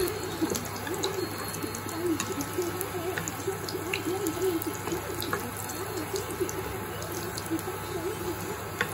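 Chopped garlic sizzling in oil in a nonstick wok, with a plastic spatula scraping and tapping the pan as it is stirred. A low wavering hum runs throughout.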